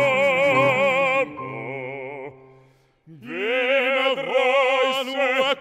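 Two male opera voices, a bass and a baritone, holding long notes with wide vibrato to piano accompaniment. About two and a half seconds in the sound fades to near silence, then the singing comes back with an upward swoop into further held notes.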